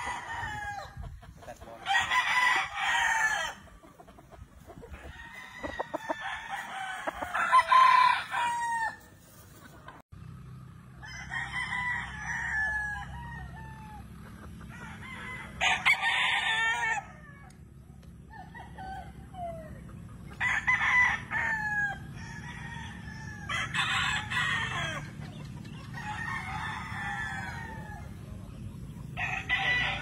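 Gamefowl roosters crowing over and over, about eight crows a few seconds apart, each call falling away at its end.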